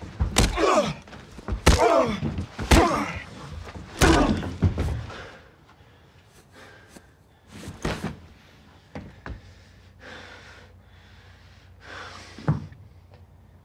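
Punches and body blows landing in a fistfight, four heavy hits in the first five seconds, each with a pained cry or grunt. After that the fight dies down to quieter shuffling, faint knocks and a couple of softer thuds.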